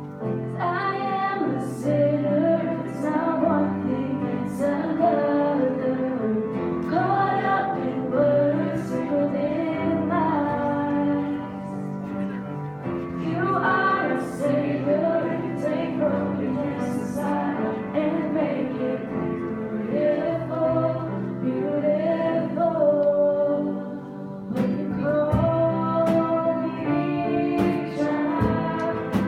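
A worship song sung by a female lead voice over steady accompaniment.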